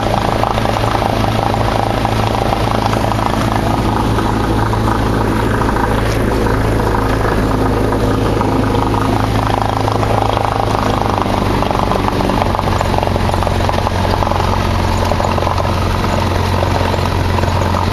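Cessna 172's piston engine and propeller running at low power while the plane taxis on a grass strip, heard from inside the cockpit as a loud steady drone. The engine note shifts slightly about two-thirds of the way through.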